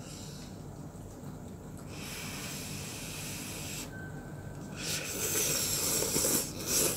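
A person slurping Shin Ramyun instant noodles off chopsticks in two long, hissing slurps, the second louder, about two and five seconds in.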